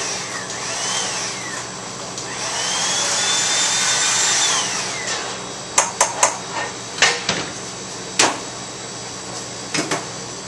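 Floured food sizzling in a pan of very hot palm oil for a sear: a loud hiss that swells about two seconds in and fades by about five seconds. It is followed by several sharp knocks and clanks of metal pans on the stove and counter.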